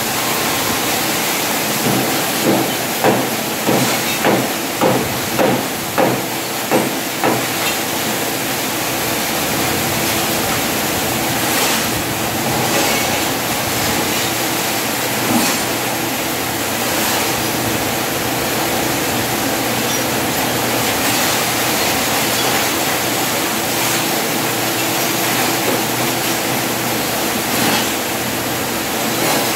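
A hammer striking the steel gate frame in a quick run of about nine blows, then a single blow later on, over a steady hissing noise.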